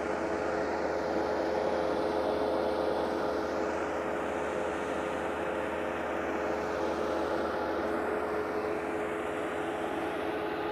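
Bobcat 863 skid steer's engine running steadily at a constant speed, with a steady hum of several even tones.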